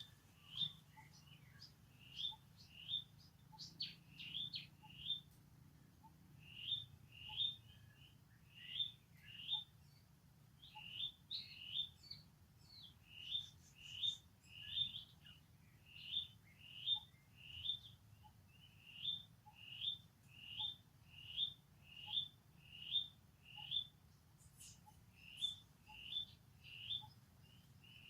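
Small animal's short, high-pitched chirping calls repeated over and over, often in quick pairs, about one or two a second.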